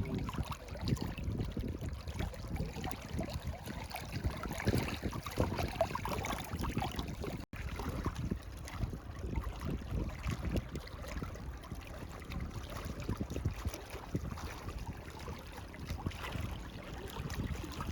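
Wind rumbling on the camera microphone, with a brief dropout about seven and a half seconds in.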